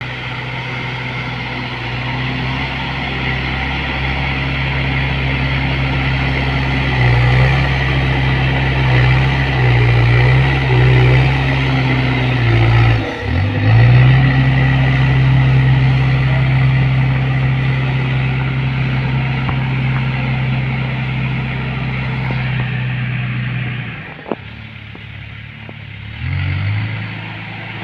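Diesel engine of a JCB 3DX backhoe loader running hard under hydraulic load, its note stepping up and down as the arms work. It dips briefly about halfway through, falls back to a low idle near the end, then picks up again.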